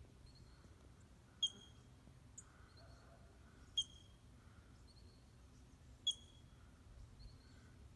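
A squirrel giving short, sharp alarm chirps, three of them at an even pace of about one every two and a half seconds.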